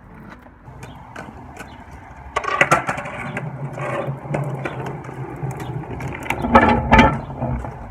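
Skateboard wheels rolling, starting about two and a half seconds in, with a few sharp clacks of the wooden board near the end.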